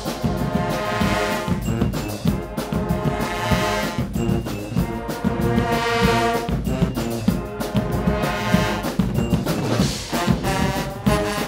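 Guggenmusik brass band playing loudly: sousaphones, trombones and trumpets blaring held chords over a steady, driving percussion beat.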